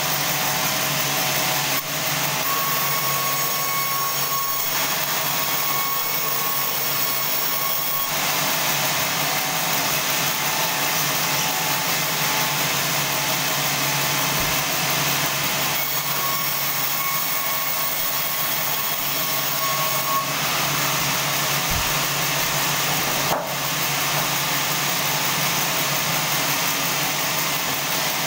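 Band sawmill running steadily, its blade sawing lengthwise through a large log, with a high whine that comes in for a few seconds twice.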